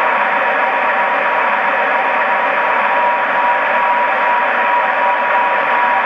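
Blower (cooling fan) sound of an LGB 20755 G-scale BR 139 electric locomotive model, played by its DCC sound decoder on function F6: a steady rushing whir with a faint steady tone in it.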